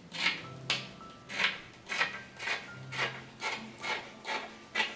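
Scissors cutting through a large sheet of linen fabric in a steady run of snips, about two a second.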